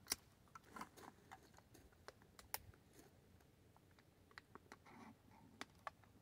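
Mostly near silence, with faint scattered clicks and small handling sounds from a beer can being shotgunned and chugged. A sharper click comes right at the start, as the can is opened at the mouth.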